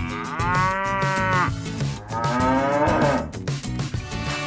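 A cow mooing twice: one long call, then a second, shorter call about two seconds in that falls in pitch.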